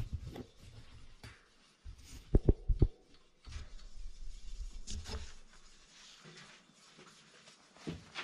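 Workshop handling noises: four quick sharp knocks about two and a half seconds in, with scattered bumps and rustling around them. Near the end, a short rustle of leather welding gloves being pulled on.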